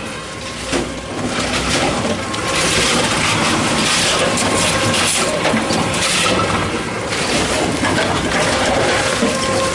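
Tomra T-63 reverse vending machine running as plastic bottles are fed in, with a steady mechanical hum under a dense rattling, crackling noise that swells every couple of seconds.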